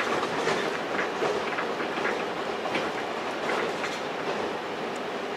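Running noise heard from inside a Z 26500 (TER 2N NG) electric multiple unit travelling at speed: a steady rumble of wheels on rail with light clicks about every three quarters of a second.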